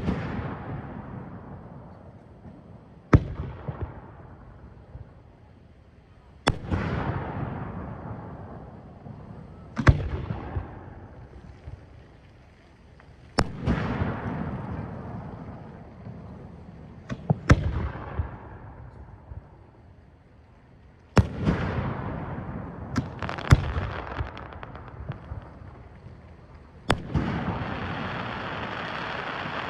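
Fireworks display: sharp bangs about every three seconds, each followed by a crackling, rumbling decay lasting a couple of seconds, with two bangs close together about two-thirds of the way through. Near the end, continuous crackling sets in.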